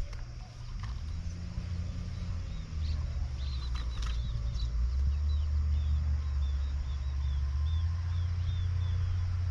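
A low engine rumble, growing louder over the first few seconds and then holding steady. Over it a bird gives short high chirps, repeating about twice a second.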